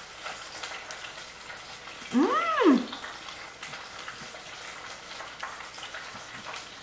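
A single drawn-out voice-like call about two seconds in, rising and then falling in pitch, over a faint steady hiss.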